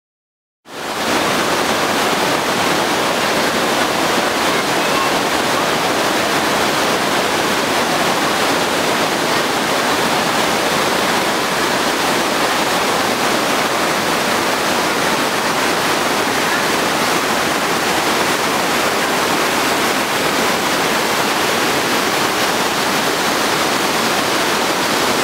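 Underground cave lake in flood, its water pouring over rock as a torrent of white water. A steady, loud rushing that starts suddenly under a second in and holds without change.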